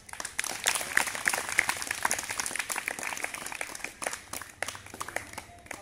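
An audience applauding: many hands clapping at once, starting suddenly and thinning out over the last couple of seconds.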